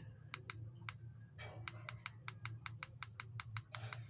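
Plus button on a ring light's inline remote controller clicked over and over to raise the brightness. There are a few scattered clicks at first, then a quick even run of about four to five a second from about a second and a half in.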